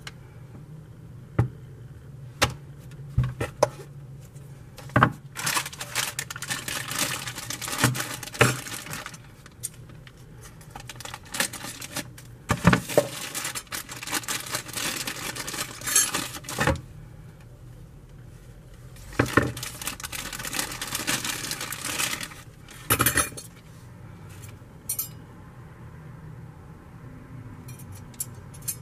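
Handling of a hand mixer's metal wire beaters and whisk: sharp clinks and taps of metal, with three stretches of several seconds of plastic bag crinkling as the attachments are unwrapped.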